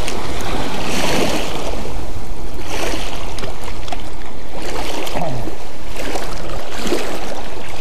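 Small waves lapping and washing onto a rocky lake shore, surging every couple of seconds over a steady low rumble.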